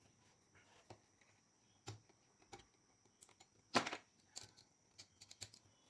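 Scattered light metallic clicks and taps of tools and engine parts being handled, with a sharper knock about four seconds in.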